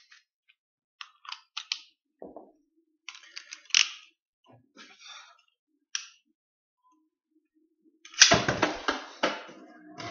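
Small plastic clicks and snaps of a Beyblade spinning top being handled and its parts clicked into place, then a louder clatter of handling about eight seconds in.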